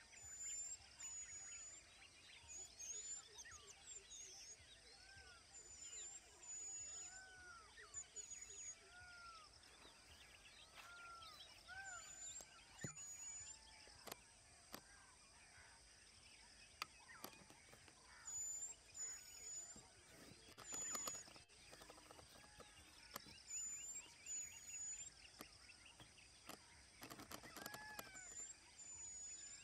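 Faint birdsong from several birds over a steady high insect drone: repeated short high chirps and lower arched whistled notes, with bursts of rapid clicking about two-thirds through and again near the end.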